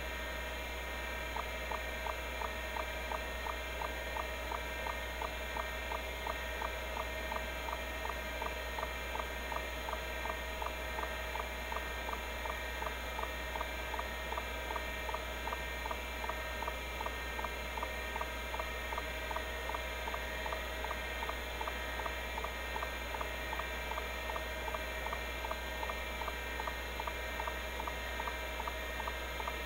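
Seagate ST-251-1 MFM hard drive running under a benchmark: the spindle hums steadily while the head actuator clicks in an even rhythm of about two seeks a second, starting about a second in.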